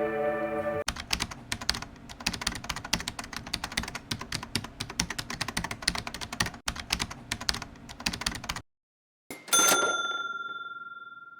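Rapid computer-keyboard typing clicks for about eight seconds, cutting in as music stops about a second in. After a short gap, a single bright ding rings and slowly fades.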